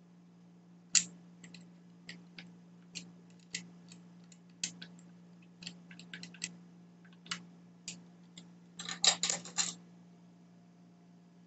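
Utility knife blade scraping and cutting at the plastic of a power-tool battery pack housing, in scattered short sharp clicks, with a quick run of clicks about nine seconds in.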